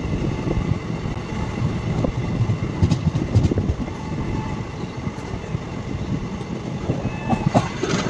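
Passenger train running along the track, heard from aboard a coach: a steady rumble of wheels on rails with irregular clicking and clatter, a little sharper near the end.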